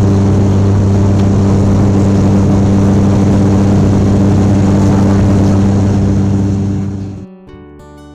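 Turboprop airliner's engines and propellers droning steadily, heard from inside the cabin, with a strong low hum. It cuts off about seven seconds in, and acoustic guitar music takes over.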